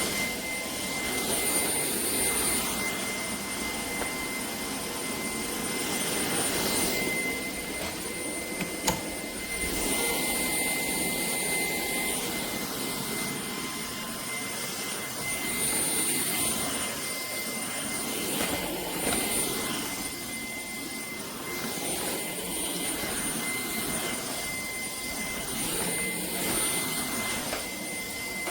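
Shark PowerDetect cordless stick vacuum (IP1251) running: a steady high whine over a rushing of air, swelling and easing a little as it works, with a single sharp click about nine seconds in.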